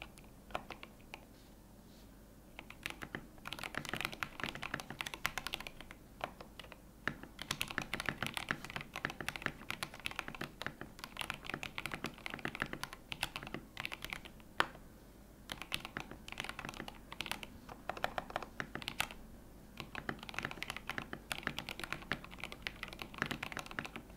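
Typing on a Tofu65 custom mechanical keyboard built with lubed Yellow Milky switches on an aluminium plate, Staebies stabilizers and a microfiber cloth in place of case foam to cut rattle: dense runs of keystroke clacks broken by short pauses, with one louder key strike about midway.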